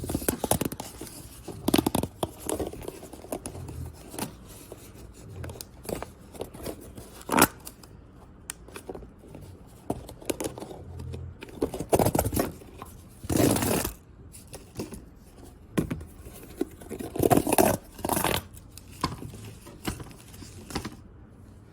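Plastic pop tube fidget toy being stretched and squashed, its corrugated ridges clicking and popping in irregular runs, with a few longer rasping stretches in the second half.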